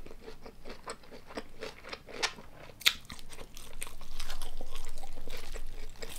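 Close-miked crunching and chewing: a person bites into and chews crisp food, with many short sharp crunches.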